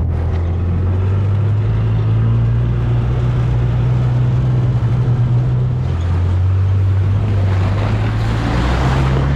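A vehicle engine running steadily under way, its pitch dropping about six seconds in and rising again near the end. A brief hiss of noise comes shortly before the end.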